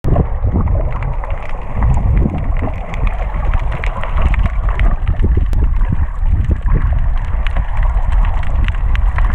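Underwater sound picked up by a submerged camera: a steady, muffled water rumble and gurgle with many scattered small clicks and pops.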